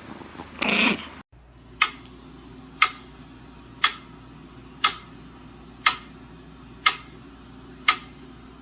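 A short noisy burst just under a second in, then a sharp tick repeating evenly about once a second.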